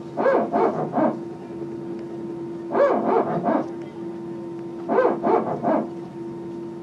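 Airbus A320 hydraulic power transfer unit (PTU) barking: groups of three or four quick bark-like pulses about every two seconds, over a steady hum. This cycling is the PTU balancing pressure between the green and yellow hydraulic systems, typical of single-engine taxi or engine start.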